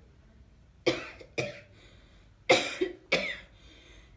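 A person coughing hard: four coughs in two pairs, the first pair about a second in and the second about two and a half seconds in.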